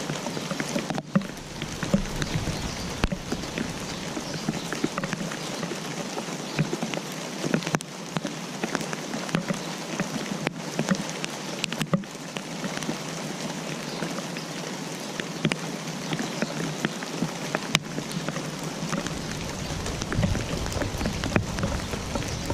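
Steady rain falling, a dense patter with many separate drops striking close by as sharp ticks.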